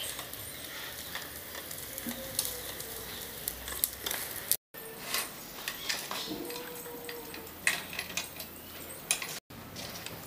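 Plastic wheels of a small kids' scooter rolling over a polished stone floor: a steady hiss with a low rumble in two stretches, and scattered light clicks and rattles from the scooter.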